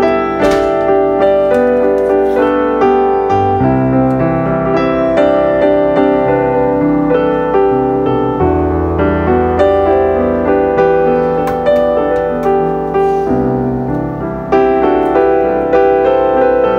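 Background piano music, a steady run of sustained notes and chords.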